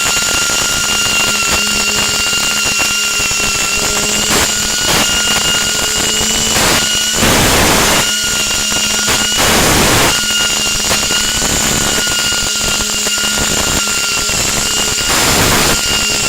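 Pneumatic 2-inch mini right-angle orbital sander running at speed while it buffs wax with a foam pad: a steady high whine over loud air-exhaust hiss, with brief surges of hiss several times.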